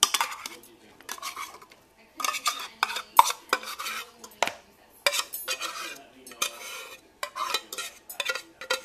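A fork scraping and clinking against a metal can and a bowl in irregular short strokes, with a few sharper clinks among them, as drained canned chicken breast is scooped out and worked.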